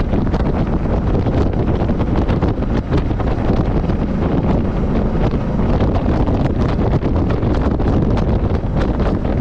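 Steady, loud wind rush on the microphone of a moving motorcycle, with the engine and road noise underneath.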